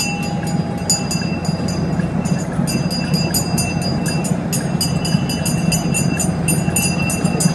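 Small brass bells on kiddie ride boats rung over and over, several strikes a second with ringing tones hanging between them and a short pause about two seconds in, over a steady low machine hum.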